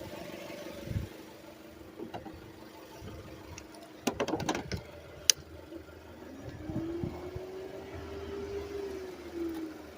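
A car engine running, with a cluster of clicks about four seconds in and one sharp click just after. Over the second half a tone rises, holds, then falls away.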